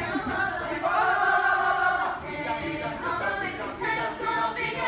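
High school show choir singing, holding one chord for about a second before moving into quicker sung phrases.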